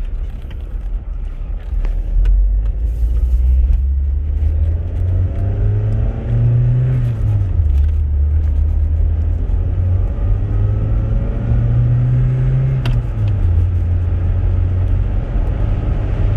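Toyota MR2 (SW20) mid-mounted four-cylinder engine heard from inside the cabin under acceleration with a manual gearbox. Its note rises in pitch, drops at an upshift about halfway through, rises again and drops at a second upshift a few seconds before the end, over a steady low road rumble.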